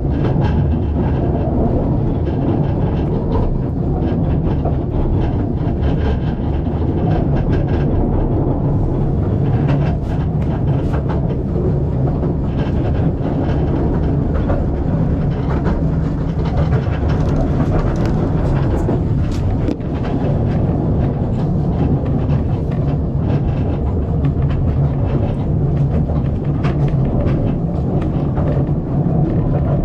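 Steam-hauled narrow-gauge passenger train carriage running along the track: a steady low rumble of wheels on rail with scattered clicks and rattles.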